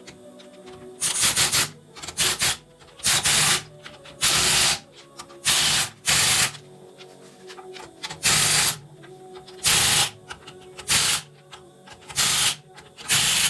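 Impact wrench fitted with a torque stick, run in about a dozen short bursts, hammering the wheel's lug nuts tight.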